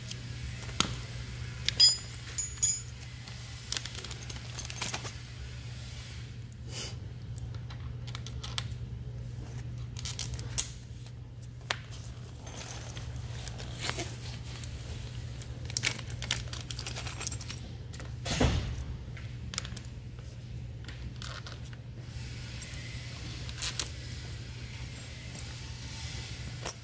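Small steel suspension hardware (bolts, nuts and washers) clinking and tapping as it is picked up, set down and fitted into an upper control arm's bushings, in many scattered short clicks over a steady low hum.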